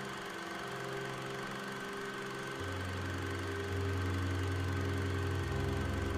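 Background music of low, sustained droning tones. The bass note changes in steps a few times and grows louder in the second half.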